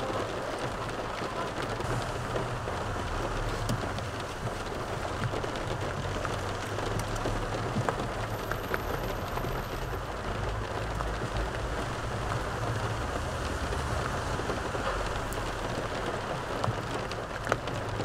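Steady hiss inside a car cabin with a low hum beneath it, and a few faint light clicks of a fork against a plastic takeaway container.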